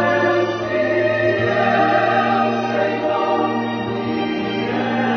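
A choir singing slow, held notes over a steady low accompaniment, the chords changing every second or two.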